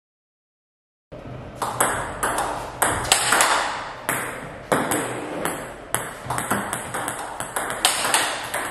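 Table tennis rally: the ball cracking off rubber-faced blades and clicking on the table, several hits a second, with a short ring of room echo after each. One blade is a Hybrid AC Inside, five wood plies with two inner Hybrid AC fibre plies. The hitting starts about a second in.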